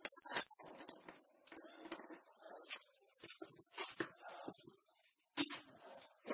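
Wood crackling and popping as a split-log Swedish torch burns: a loud cluster of snaps right at the start, then scattered sharp pops and small crackles.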